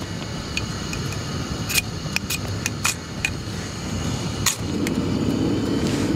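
Knife scraped along a ferrocerium rod to throw sparks at a camp stove burner: several sharp, irregularly spaced scrapes. Steady wind rushes on the microphone underneath.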